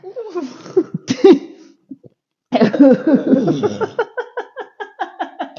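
Laughter, with a short, sharp cough-like burst from the throat about a second in. Near the end the laughter breaks into quick, rhythmic ha-ha pulses.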